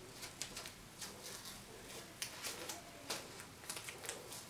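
Hands handling the cut end of a roll of seamless background paper, peeling off blue masking tape and rustling the paper: faint, irregular crackles and ticks.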